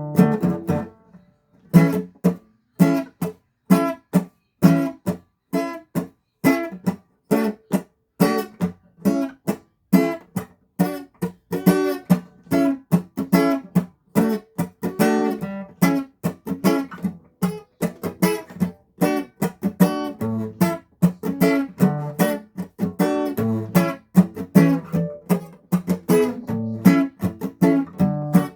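Acoustic guitar strummed in short, choppy strokes by a beginner, a few strums a second, with a brief break about a second in.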